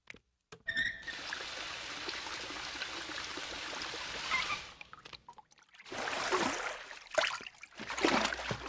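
Cartoon sound effect of a bathtub tap filling the tub: a short squeak, then water pouring steadily for about four seconds before cutting off suddenly. Several short splashes follow near the end.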